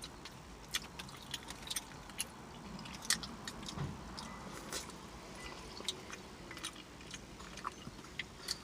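A person chewing food close to the microphone with open-mouth smacking: a run of faint, irregular wet clicks and smacks, several a second.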